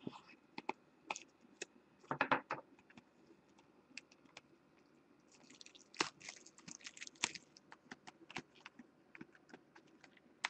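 Plastic wrap crinkling and tearing as a sealed 2013 Panini Select baseball mini box is unwrapped, with scattered small crackles and taps that grow busiest about halfway through.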